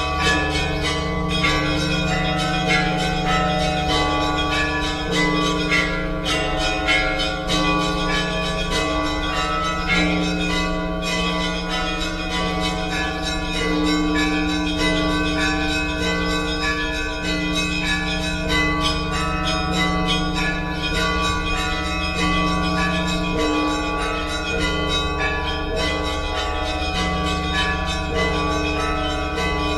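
Orthodox church bells ringing a zvon: many bells of different pitches struck in quick succession, their tones overlapping over the steady low hum of the largest bells.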